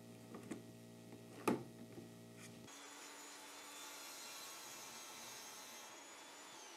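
Toggle clamps click shut on a small sled over the steady hum of an Evolution Rage 5-S table saw. From about three seconds in, the blade cuts through plywood with a hissing noise and a high steady whine, which drops in pitch and fades near the end as the cut finishes.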